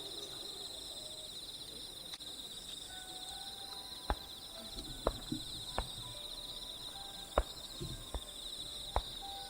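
Crickets chirping in a steady, high, pulsing trill. About six sharp pops or knocks come in the second half.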